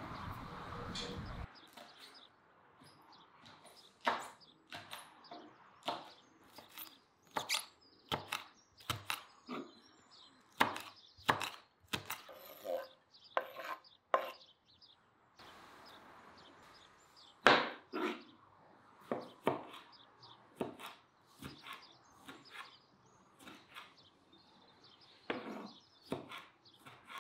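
Kitchen knife chopping vegetables on a wooden cutting board: a run of irregular sharp knocks, about one or two a second.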